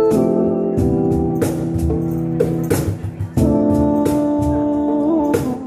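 Live band music: an electronic keyboard holding organ-style chords, changing chord a few times, over a steady drum beat.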